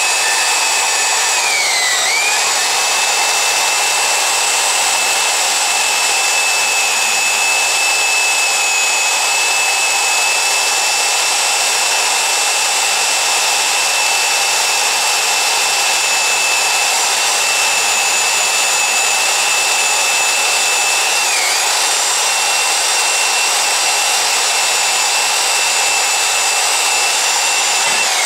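Milwaukee Portaband portable band saw cutting through rusty steel stock with a bi-metal blade: a loud, steady motor whine with the hiss of the blade in the metal. The whine dips briefly in pitch twice, about two seconds in and again about twenty seconds in, as the saw slows under load. By the end the blade is almost through the cut.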